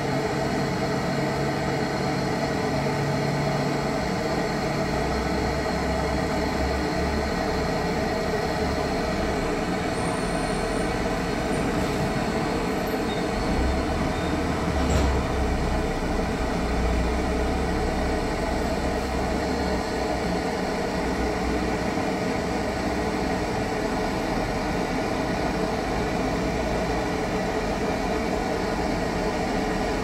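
Gas brazing torch flame burning steadily with a continuous rushing hiss, brazing a capillary tube joint on a refrigerator line, with a few low rumbles around the middle.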